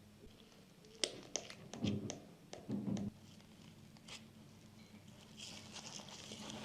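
Small parts being handled by hand: a cluster of light clicks and taps, some with a soft thud, then a faint hiss near the end.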